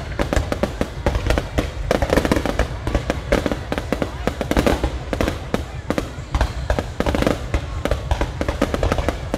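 Fireworks display going off: rapid, irregular bangs and crackles, many a second, without a break.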